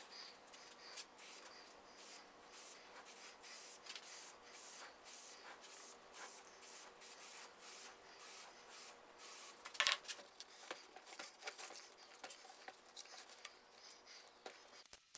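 Faint rubbing and brushing of hands working felt cloth over wooden inserts and pressing them into place, with one louder click about ten seconds in.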